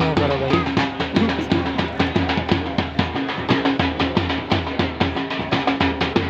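Music with a steady drum beat over sustained bass notes.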